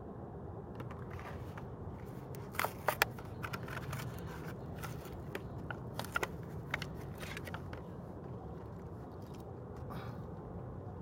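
Plastic blister packaging and card backing crackling and cracking as a Hot Wheels die-cast car is pried out of its package: a run of sharp crackles and clicks, loudest about three seconds in, over steady low background noise.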